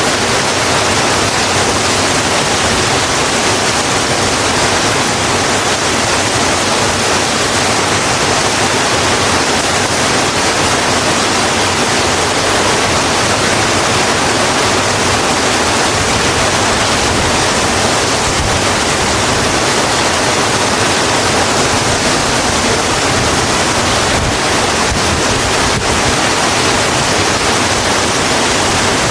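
Steady, even rain, a constant hiss of falling water with no breaks or distinct drops standing out.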